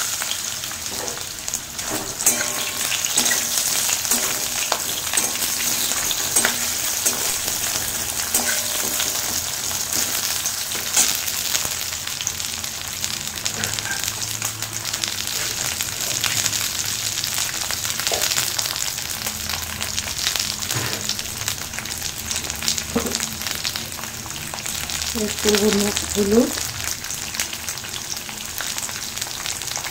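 Potato wedges and green chillies sizzling steadily in hot oil with panch phoron in a metal kadai, with a metal spatula scraping and knocking against the pan as they are stirred.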